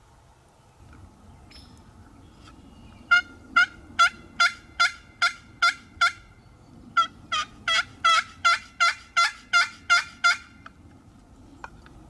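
Wild turkey yelping: two runs of loud, evenly spaced yelps, about eight, then after a short pause about ten more.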